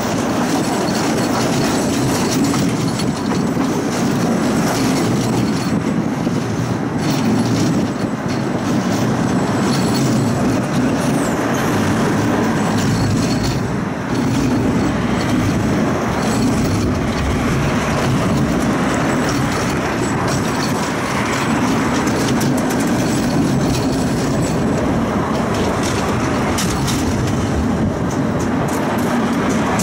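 Electric tram running along its track, heard from inside the car: a steady, loud rumble of steel wheels on the rails and the running gear, with a few short clicks and rattles.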